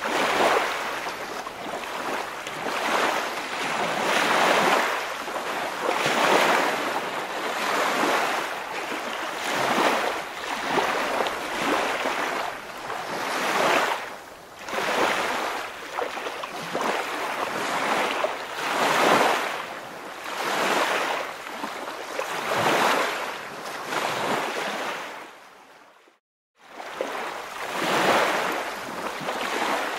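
Waves washing in: a rushing that swells and fades every couple of seconds. It cuts out for about a second near the end.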